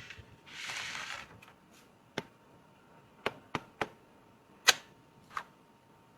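Packaging being handled: a short rustle, then a series of sharp clicks and taps, one much louder than the rest about two-thirds of the way through.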